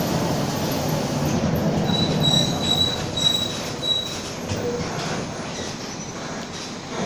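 Mercedes-Benz OF-1722M city bus running and slowing, its engine note fading, with a high-pitched squeal in about five short pulses between two and four seconds in.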